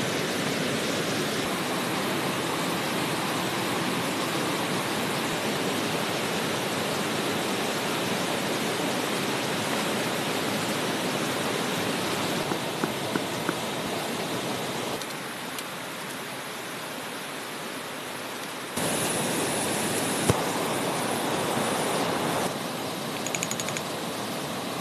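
Steady rushing water of a rocky forest stream, with a few light clicks and one sharp knock. The rush changes in loudness and tone a few times partway through.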